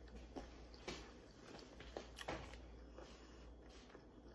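Near silence: faint room tone with a few soft clicks, about one, two and two and a half seconds in.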